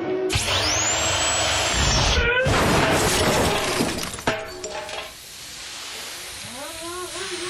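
A Milwaukee 18-volt heavy-duty cordless impact wrench runs with a high whine that rises and falls, then a loud crash with breaking sounds as the car is twisted onto its roof, ending in a sharp knock about four seconds in.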